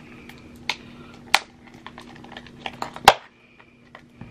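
Plastic lip-gloss packaging being handled and pried open: scattered small clicks and crinkles, with sharper snaps about a second and a half in and about three seconds in.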